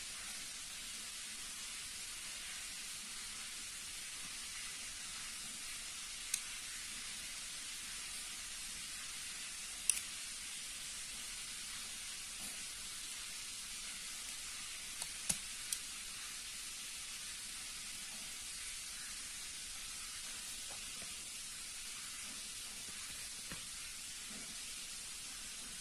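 Steady hiss with a few sharp metal clicks from a Leatherman Surge multitool being handled: one about six seconds in, a louder one near ten seconds, a quick run of three around fifteen seconds, and a faint one near the end.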